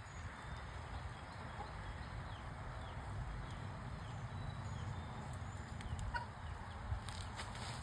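Chickens clucking faintly over a steady low rumble.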